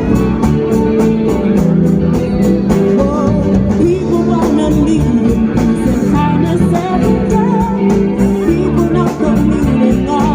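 Loud music with a singing voice over guitar and a steady beat.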